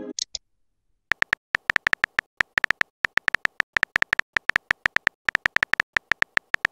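Phone on-screen keyboard key-tap sound effect: rapid short clicks, several a second at an uneven typing pace, starting about a second in. Two brief high blips come just before them.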